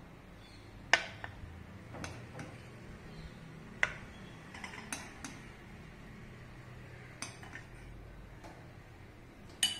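Metal teaspoon clinking against a glass bowl and a clear plastic chocolate mould while melted chocolate is spooned in: a handful of scattered sharp clinks, the loudest about a second in.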